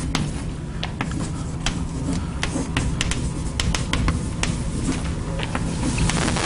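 Writing on a lecture board: irregular sharp taps and clicks, several a second, over a steady low room hum.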